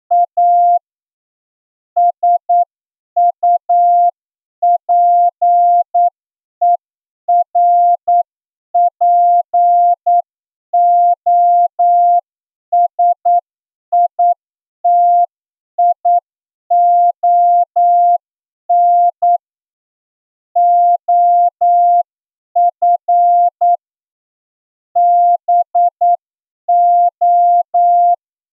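Morse code sent as a single steady tone of about 700 Hz, keyed on and off in dots and dashes with gaps between characters and words. It is a plain-language passage sent at the exam speed of about 8 words per minute for a Morse receiving test.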